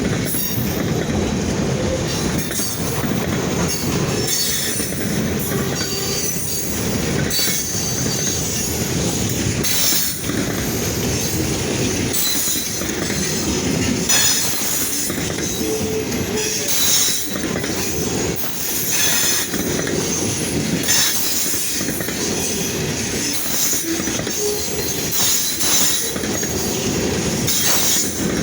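Freight train cars rolling past with a steady rumble and clatter, and the wheels squeal against the rail again and again.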